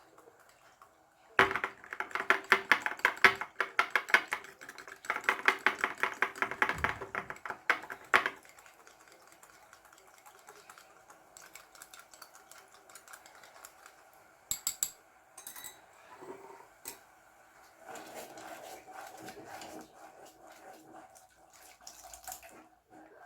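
A utensil stirring cornstarch into water in a glass or bowl: a fast run of ringing clinks for about six seconds, a few single taps later, then a softer stretch of stirring near the end.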